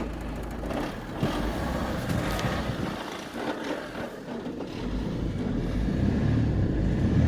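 Opel Zafira 1.9 CDTI 120 hp four-cylinder turbodiesel running, getting louder over the last couple of seconds. It carries a noise whose source the owner cannot locate.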